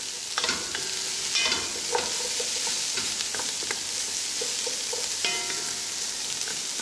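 Chopped carrots, celery and onion sizzling steadily in oil in an aluminium pot, while a wooden spoon stirs them, scraping and clicking against the bottom of the pot.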